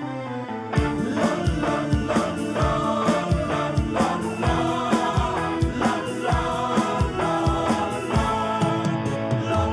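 Soundtrack music: a song with singing over a steady drum beat, kicking in about a second in after a falling keyboard run.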